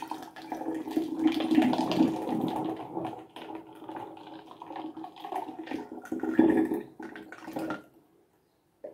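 Watermelon juice poured into a glass swing-top bottle in a steady stream that stops just before eight seconds in, with the bottle full.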